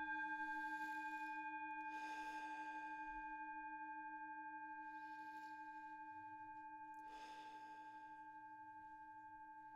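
Brass singing bowl ringing after a single strike, several steady tones slowly fading with a slight waver. Slow deep breaths in and out over it.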